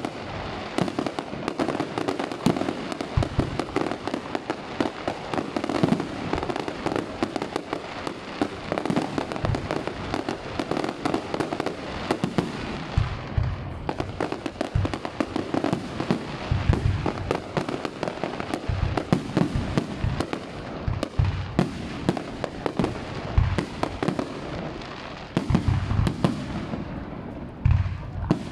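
Fireworks display: a dense, continuous run of bangs from aerial shells bursting, with heavier low thuds scattered through.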